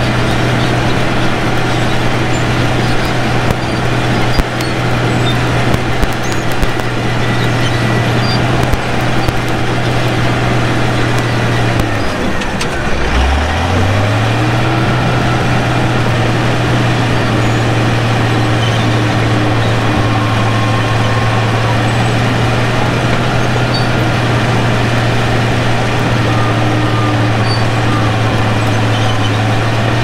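Crawler bulldozer's diesel engine running at steady high speed, with scattered clanks. About twelve seconds in the engine speed drops sharply, then climbs back up within a couple of seconds.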